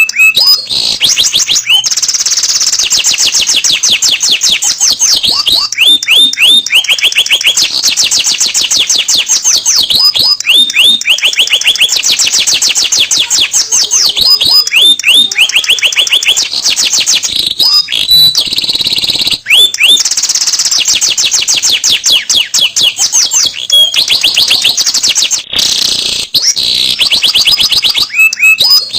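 Domestic canary singing a long, unbroken song of rapid high-pitched trills, switching every few seconds to a new roll of different speed and pitch, with only brief pauses.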